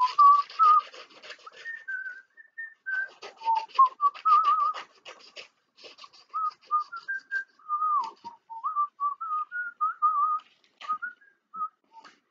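A man whistling a wandering tune to himself while scissors snip through paper in several short runs of cuts.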